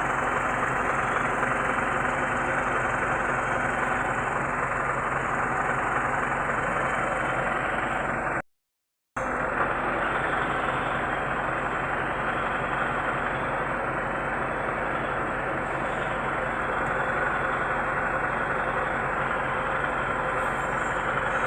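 Hino E13C inline-six diesel engine of a Hino 700 truck idling steadily after a semi-overhaul, with a brief break in the sound about eight seconds in.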